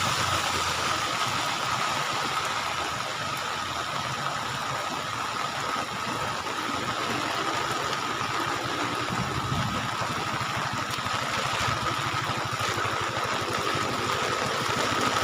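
An engine idling steadily, with a constant high whine running over it.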